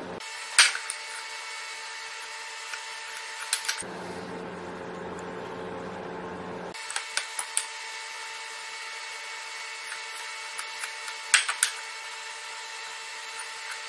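Marking knife scoring shoulder lines into a pine leg along a bevel gauge: a few short, sharp clicks and scrapes of the blade on the wood, spread out with pauses between them, over a steady background hiss.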